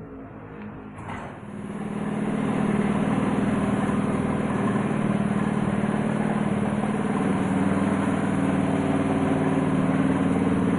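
High-pressure air compressor starting about a second in, then running steadily with a mechanical hum and a high hiss of air, supplying air for spraying primer.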